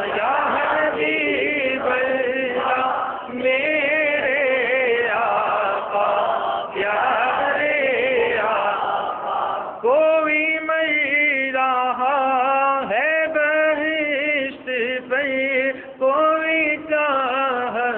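A man singing an Urdu naat, a devotional song praising the Prophet, into a microphone, drawing out long wavering notes with short breaths between phrases.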